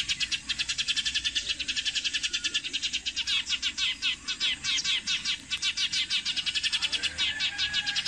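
Sparrows chirping rapidly and continuously, a dense stream of short, high chirps many times a second.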